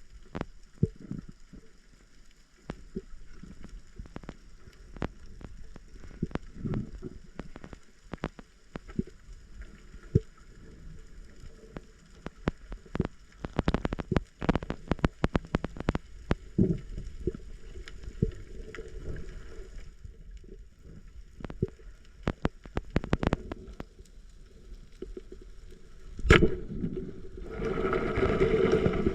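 Underwater sound picked up by a diver's camera: scattered sharp clicks and knocks over low gurgling water movement. About 26 seconds in there is a single loud, sharp crack, and shortly after, a dense rushing of water or bubbles starts and runs to the end.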